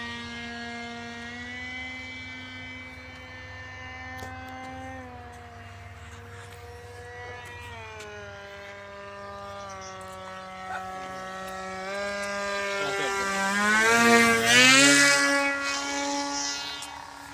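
Radio-controlled model fighter plane's electric motor whining in flight, its pitch stepping down and back up with the throttle. Near the end it grows much louder with a quick rise in pitch as the plane passes close.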